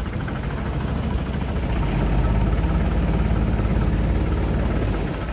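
Motorboat engine running steadily under way, its low hum growing somewhat louder about two seconds in and easing slightly near the end.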